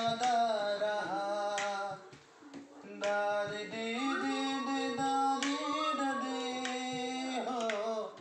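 A voice singing a slow melody with long held notes, breaking off briefly about two seconds in and then resuming.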